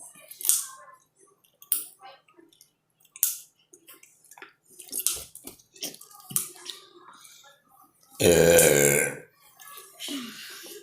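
A loud, long burp lasting about a second, near the end, after several short wet clicks and gulps from drinking water.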